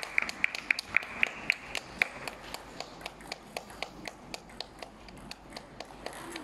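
Table tennis balls clicking off bats and tables in quick, irregular succession, about three or four clicks a second, a little fainter after the first two seconds.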